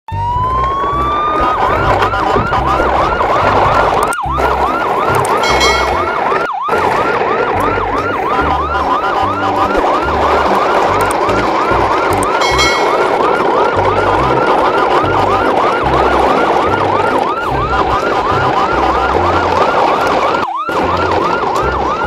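Electronic yelp siren: the pitch winds up at the start, then whoops rapidly up and down about three times a second, over a low pulsing beat. It breaks off briefly a few times.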